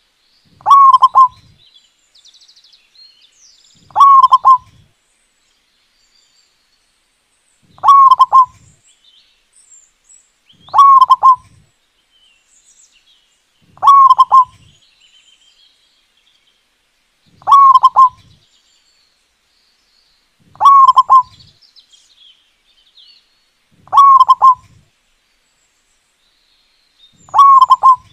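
Zebra dove (perkutut) cooing its song, a short run of notes repeated nine times, one phrase every three to four seconds. Faint high chirps of small birds come between the phrases.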